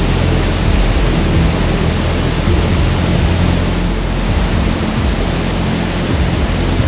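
Steady, loud roar of falling water from a waterfall, an even rushing noise with no breaks.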